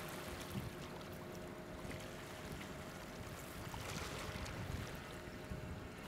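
Harbour-shore ambience: wind rumbling on the microphone and small waves lapping on the shore stones, under a faint steady engine hum from across the water.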